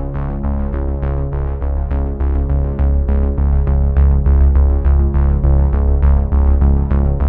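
Electronic background music: synthesizer chords over a heavy bass and a steady quick beat.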